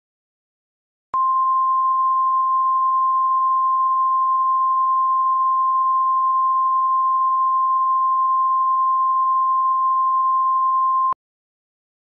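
Emergency Alert System attention signal: the National Weather Service's single 1050 Hz warning tone, starting about a second in, held steady for about ten seconds and cutting off abruptly. It announces an urgent weather warning about to be read.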